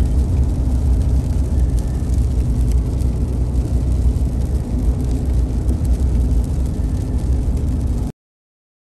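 A vehicle engine running steadily with a low drone, then cutting off abruptly near the end.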